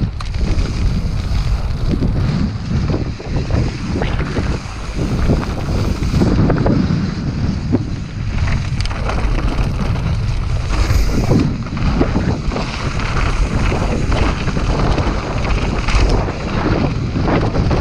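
Wind buffeting a GoPro's microphone as a mountain bike rides fast over rocky dirt singletrack, with the tyres and frame rumbling and rattling in frequent small knocks.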